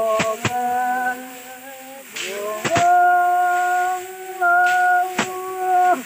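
Voices holding long, steady hummed or sung notes, changing pitch only a few times, cut across by sharp whacks as bundles of paddy stalks are beaten against a grain-covered threshing floor, about five strikes in all.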